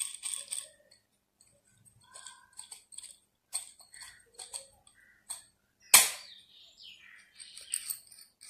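Steel bolt and nut being handled and fitted into a plastic pipe: scattered small metal clicks and scrapes, with one sharp, louder click about six seconds in.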